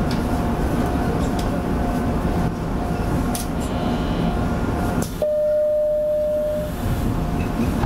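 Standing electric train heard from the driver's cab: a steady low hum of onboard equipment with a faint high tone, then a knock about five seconds in as the doors shut, followed by a steady beep lasting about a second and a half.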